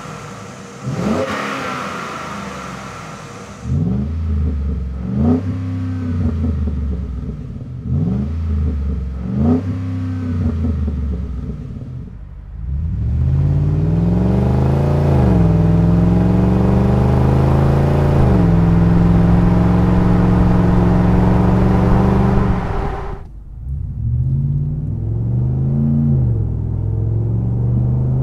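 Ford F-150's 5.0L Coyote V8 revved at a standstill: a series of short throttle blips, then one rev held at a steady raised speed for several seconds, then more blips near the end. It is heard first through the stock exhaust and then through a Flowmaster FlowFX Extreme single turn-down cat-back exhaust, which gives a deep, rumbly note, last from inside the cab.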